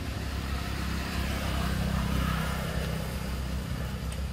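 Low engine rumble of a passing motor vehicle, swelling to its loudest about two seconds in and then easing off.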